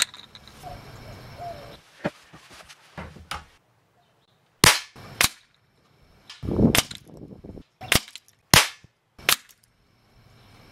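A knock right at the start as the Shatter Blast target is tapped to drop a disc. Then, in the second half, about six sharp cracks a second or less apart: Daisy Power Line 880 pellet rifle shots and pellets smashing the target's orange discs.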